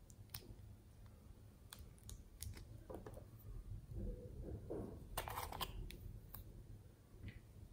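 Quiet clicks and taps of small plastic containers being handled and opened, with a few scattered sharp clicks, a denser run of them a little past halfway, and some soft rubbing in between.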